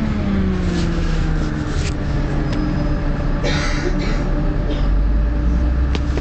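MAN 14.240 single-deck bus's diesel engine heard on board: its note falls as the revs drop over the first second or so, then holds steady, with a deeper rumble building about five seconds in. A few brief noisy bursts sound over it.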